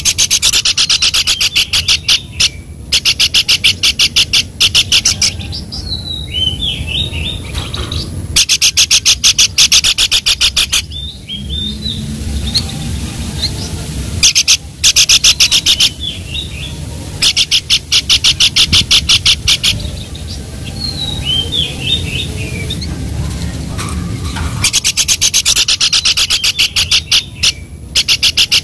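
Songbird singing for a song-tutoring recording: repeated bouts of a fast, dry trill a couple of seconds long, alternating with short slurred whistled phrases, over a steady low background rumble.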